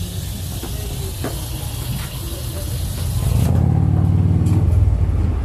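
A motor vehicle engine running with a low drone over a steady hiss, growing clearly louder about three seconds in.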